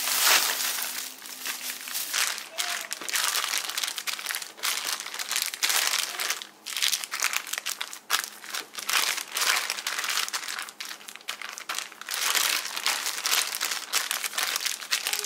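Plastic zip-top bag crinkling and rustling as dough inside it is pressed and kneaded by hand, in repeated pushes about a second apart.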